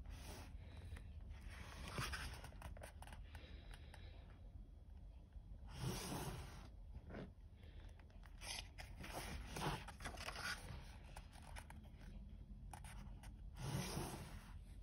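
Pages of a colouring book being turned by hand: paper rustling and swishing in several short bursts a few seconds apart.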